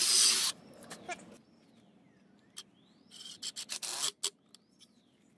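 Ryobi 18V cordless drill driving a screw into the timber tabletop, stopping about half a second in, then several short trigger bursts about three to four seconds in as the screw is seated. A bird calls faintly in between with notes that slide down and back up.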